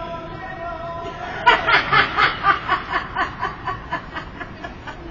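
A person laughing: a run of quick 'ha' pulses, about four a second, starting about a second and a half in and fading away.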